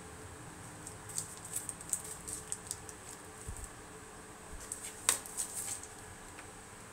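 Light, sharp clicks and ticks in two scattered clusters, about a second in and again about five seconds in, the sharpest one near five seconds, over a faint steady high whine.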